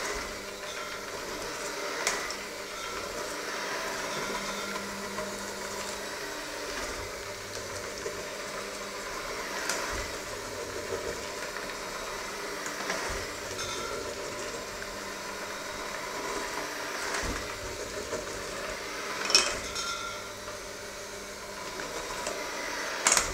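Electric hand mixer running steadily, its beaters churning a thick mixture in a stainless steel bowl, with a few sharp clinks as the beaters strike the bowl's side.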